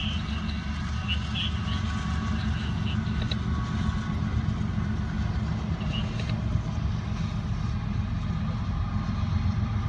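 Steady low engine rumble, slowly growing louder.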